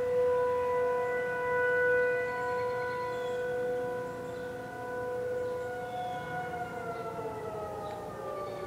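Outdoor tornado warning sirens sounding a steady, swelling-and-fading tone during a test. About two-thirds of the way in, the pitch starts to fall as the sirens wind down, and several siren pitches come apart from one another.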